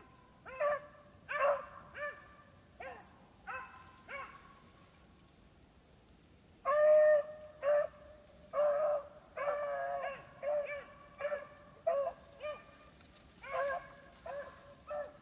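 Beagles baying while running a rabbit's scent trail: a string of short pitched bawls, sparse at first, then after a pause of about two seconds denser and louder from about seven seconds in.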